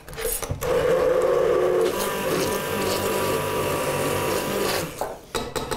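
Hand-held immersion blender running in a saucepan of saffron pea soup, frothing it into a foam. The motor starts under a second in, runs at a steady pitch and cuts off about five seconds in.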